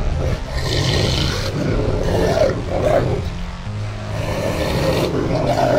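Rottweiler growling and snarling, with a few louder snarls.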